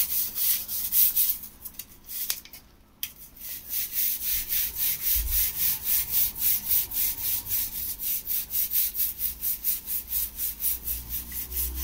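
Stiff-bristled grout brush scrubbing wet tile grout in quick back-and-forth strokes, about four a second. A few strokes and a short pause come first, then steady scrubbing to the end.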